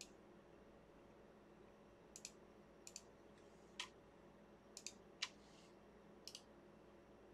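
Faint clicking at a computer: about ten short clicks, most in quick pairs, as parts are placed in a CAD program, over a low steady hum.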